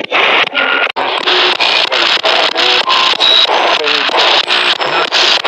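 Radio sweeping rapidly across FM stations as a ghost box, spitting out chopped fragments of broadcast voices, music and static about four times a second. The operator takes the fragments for a ghost saying 'hives' and 'bees'.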